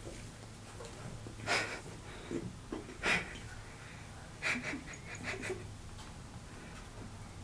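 A person breathing hard, with two loud noisy breaths about a second and a half and three seconds in, then a run of short mouth clicks and crackles a little past the middle.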